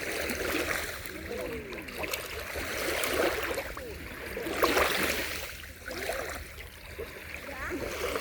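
Black Sea waves washing onto the shore, swelling and falling a few times, with indistinct voices in the background.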